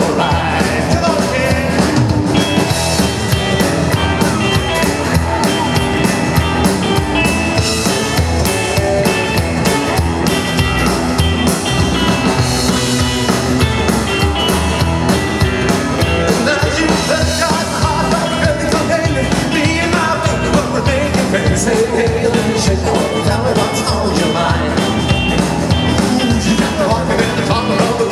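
A rock and roll band playing live.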